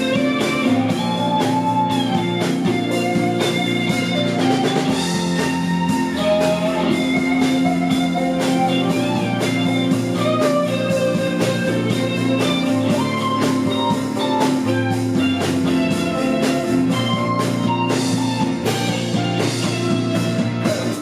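Band playing an instrumental passage of a song: a guitar melody over a steady drum beat.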